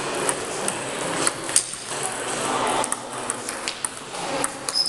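Table tennis ball clicking sharply and irregularly against the bats and table during a rally, over a steady background hum.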